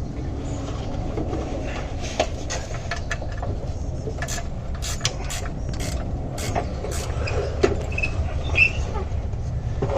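Scattered clicks and light metallic knocks as a transmission jack is pulled out from under the truck, over a steady low rumble.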